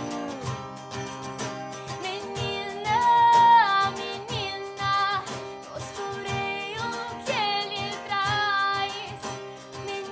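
Female vocalist singing a slow, gliding melody, with no words picked out, over instrumental accompaniment and a steady pattern of hand-percussion strikes.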